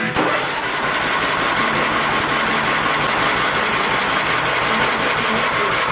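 15 HP Kohler Command single-cylinder engine on a John Deere LT155 lawn tractor cranking over on its electric starter with a fast, steady chatter, not catching. It is the first start attempt after three years unused.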